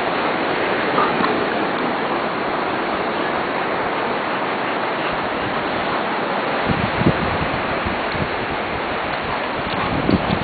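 Steady rush of ocean surf and wind on an open beach, with a couple of brief low thumps about seven seconds in and near the end.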